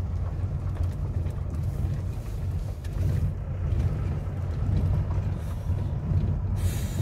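Steady low rumble of a moving vehicle's engine and tyres, heard from inside the cabin, with a brief hiss near the end.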